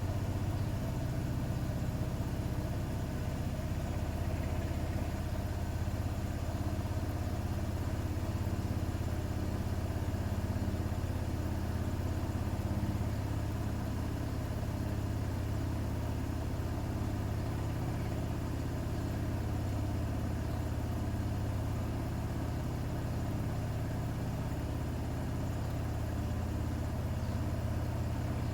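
Bosch Serie 6 WAT286V0 washing machine running a 90 °C boil wash: a steady low hum with no clear rhythm.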